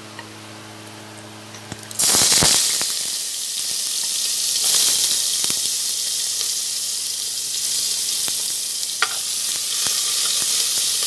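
Pounded garlic, onion and ginger hitting hot chicken oil in a pressure cooker about two seconds in, then sizzling steadily as they sauté. A metal spatula knocks and scrapes the pot a few times as it stirs.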